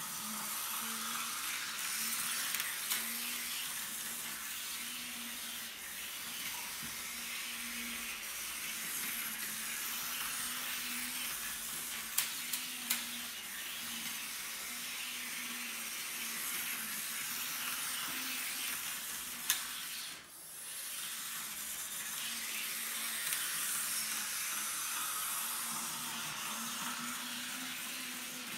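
HO-scale model train running around the track: a steady whirring hiss of the small electric motor and wheels on the rails, with a faint low hum that swells and fades. A few light clicks come in a cluster near the middle and once more a little later.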